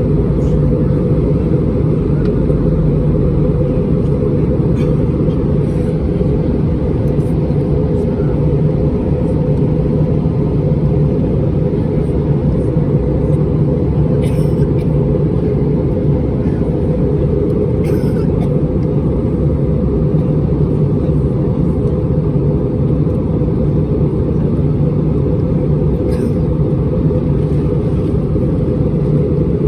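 Steady drone of an Airbus A320's IAE V2500 engines and airflow heard inside the passenger cabin in flight, a deep, even rumble that does not change.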